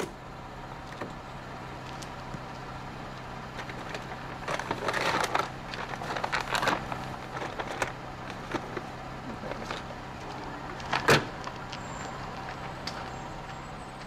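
A car idling with a steady low hum. Over it come scuffs and rustles of people walking with a carried bag, and one sharp knock about eleven seconds in.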